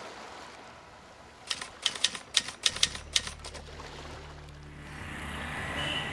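A quick run of about eight sharp, typewriter-like key clicks lasting under two seconds, a typing sound effect, followed by a low steady hum and a rising wash of noise near the end.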